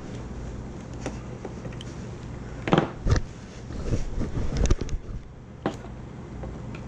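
Sharp clicks and knocks of a plastic instrument case and its circuit board being handled with pliers as the board is pushed back into its socket, a handful of separate knocks with the loudest about three seconds in, over a steady low hum.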